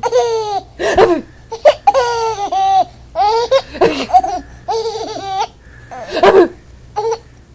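Baby laughing in high-pitched bouts, broken by short sharp hiccups about every two to three seconds.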